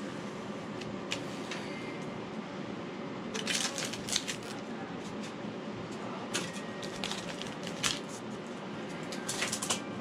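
Steady background hum with several short bursts of rustling and clicking from hands handling foam and tools, about three and a half seconds in, twice in the middle and again near the end.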